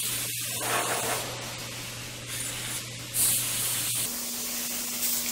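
Airbrush spraying paint in short hissing bursts of air, the loudest a little after three seconds in, over a steady low hum that jumps higher in pitch about four seconds in.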